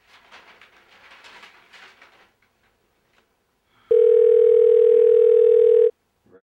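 Faint rustling of newspaper pages, then a red push-button desk telephone's electronic ringer sounds a loud, steady, buzzy tone for about two seconds, stops for about a second, and starts again near the end.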